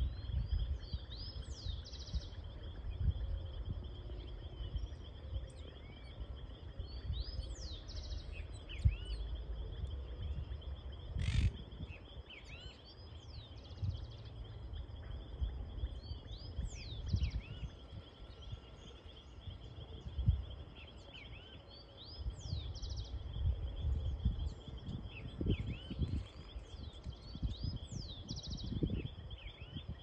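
Birds calling outdoors: a whistled song phrase repeated about every five or six seconds, with scattered chirps and chatter from monk parakeets feeding, over a steady high-pitched buzz. Gusty low rumble of wind on the microphone, and one sharp click about eleven seconds in.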